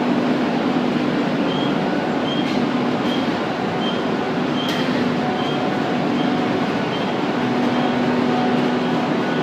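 Calcite grinding and screening plant machinery running: a steady, loud industrial din with a low hum. A short high-pitched beep repeats about twice a second through the first half or more, and a single sharp click comes about halfway.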